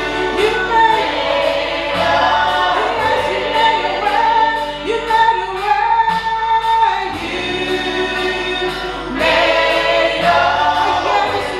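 Gospel worship song: a group of voices singing over instrumental backing with a steady beat.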